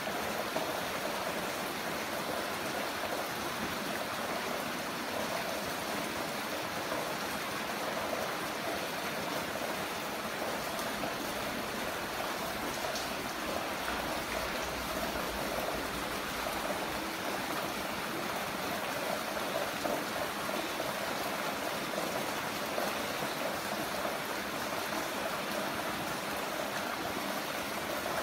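Heavy rain falling steadily, an even rushing hiss with no letup.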